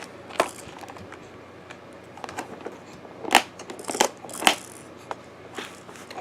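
Hard plastic toy parts being handled: a few scattered sharp clicks and knocks with light rustling, three louder knocks close together past the middle.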